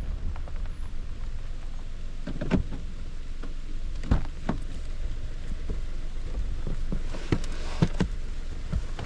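Wind rumbling on the microphone, with a few scattered knocks and clicks.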